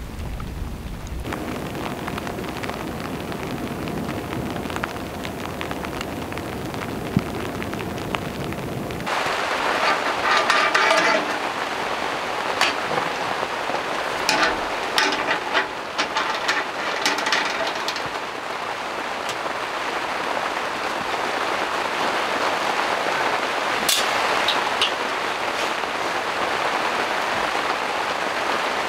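Steady rain. About nine seconds in it changes to rain pattering on tent fabric, with bursts of clicks and knocks as a portable kerosene heater is handled.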